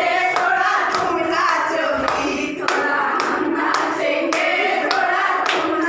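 A group of women singing a song together, with hands clapping along.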